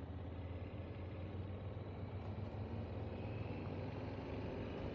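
Motorcycle on the move at a steady speed: a low, even engine and road rumble with wind noise, picked up by a rider's wireless clip-on microphone.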